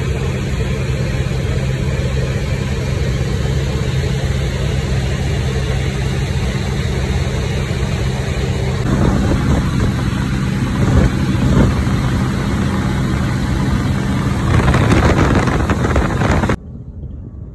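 Cessna 152's four-cylinder Lycoming engine and propeller droning steadily in flight, heard from inside the cabin as a constant low hum. A louder rushing noise joins about halfway through, and the sound cuts off suddenly near the end, leaving a much quieter background.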